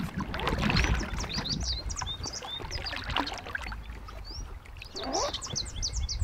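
Small songbirds chirping again and again over the low rumble of river current around a drift boat, with a few soft knocks from the rod and boat being handled and a short rising sound about five seconds in.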